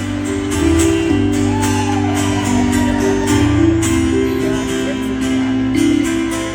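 Live country band playing a slow instrumental passage with guitar, held chords over a steady beat.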